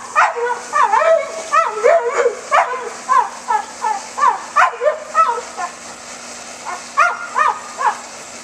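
A dog barking rapidly and repeatedly, several barks a second, then pausing briefly before a few more barks near the end.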